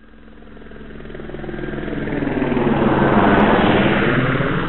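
A helicopter flying past: its rotor and engine sound swells from nothing, is loudest about three seconds in, then begins to fade.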